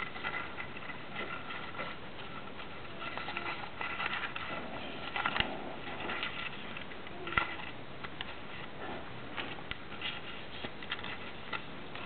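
Paper crinkling and rustling as a folded origami square is handled and creased by hand, with scattered small clicks and two sharper snaps about five and seven seconds in.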